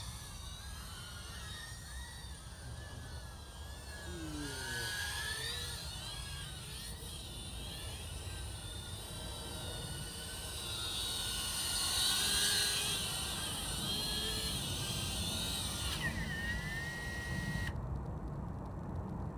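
Small quadcopter drone's motors and propellers whining, the pitch wavering up and down as it manoeuvres. About three-quarters of the way through, the whine winds down and cuts off as the motors stop.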